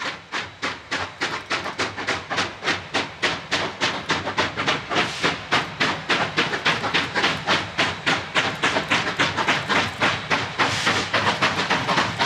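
Steam locomotive working hard on a runby, its exhaust beating out rapid, even chuffs about four or five a second that grow steadily louder as it approaches.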